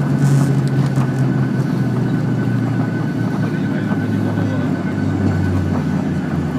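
Boeing 737-800's CFM56-7B jet engines running in reverse thrust during the landing rollout, heard from inside the cabin. A steady rush with a low hum that slides slowly down in pitch as the engines spool back down.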